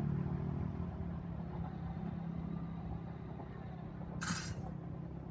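A diesel railcar's engine and running noise fading as the local train moves away from the level crossing, leaving a steady low hum. A short, sharp hiss sounds about four seconds in.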